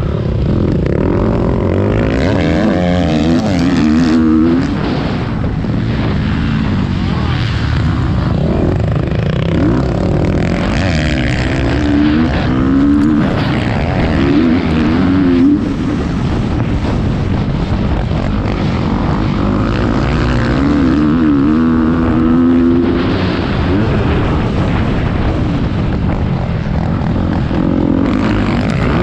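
Motocross bike engine heard from a GoPro on the bike or rider, running hard with the revs rising and falling again and again.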